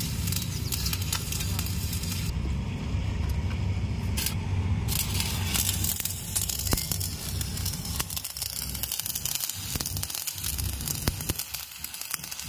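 Stick (shielded metal arc) welding: the electrode's arc crackling and sizzling as tack welds are laid on a steel pipe-to-tee joint, over a steady low hum.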